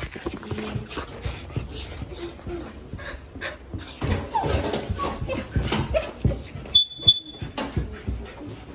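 A dog whimpering in short, high-pitched squeaks, with scattered knocks and rustles as it moves about. A brief, steadier squeak comes about seven seconds in.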